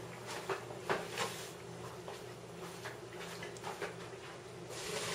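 Faint scattered clicks and knocks of a pot and kitchen utensils being handled, over a steady low hum.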